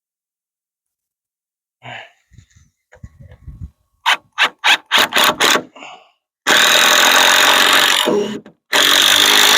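Power drill driving screws: a few short bursts of the trigger, then two longer loud runs of a second or two each.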